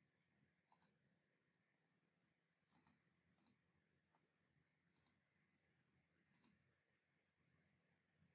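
Faint computer mouse clicks, five in all, spaced a second or two apart. Each is a quick double tick.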